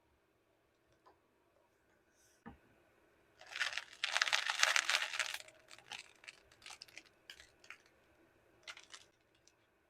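Pages of a paperback manga crackling as its paint-stiffened fore-edge is flexed and fanned, crunchy because the dried paint has stuck the page edges together. A dense crackle about three and a half seconds in lasts some two seconds, then lighter scattered crackles follow.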